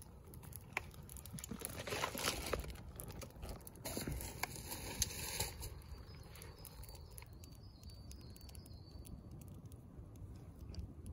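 Wood campfire crackling and popping under a cast-iron Dutch oven being seasoned with oil, with two spells of hissing in the first half; quieter from about halfway on.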